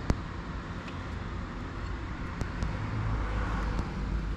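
Crescent wrench working the nut on a motorcycle's gear shift linkage: one sharp metallic click just after the start and a few fainter ticks later, over a steady low rumble.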